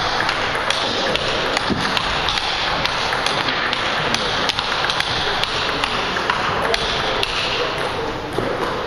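Table tennis ball being played in a rally: sharp clicks of bat hits and table bounces, over a steady background noise of the hall.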